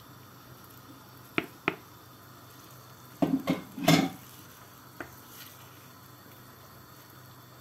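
Wooden spoon stirring a pot of chicken, tomato and bulgur pilaf, knocking against the stainless steel pot: two sharp taps about a second and a half in, a quick run of heavier knocks around the middle, and one last tap a second later, over a faint steady hum.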